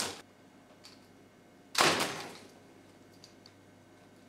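Plastic wiring-harness connectors being pulled off a Candy washing machine circuit board: a short sharp click at the start and a louder plastic clack about two seconds in.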